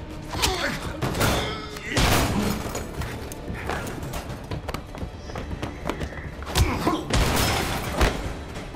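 Film fight-scene soundtrack: a series of hard punches, body blows and heavy thuds, with men grunting, over background score music.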